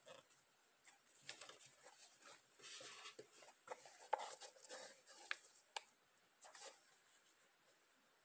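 Faint rustling and scuffing as a Puma R78 sneaker is handled and turned in the hands, with a few light clicks and taps, the sharpest about four seconds in.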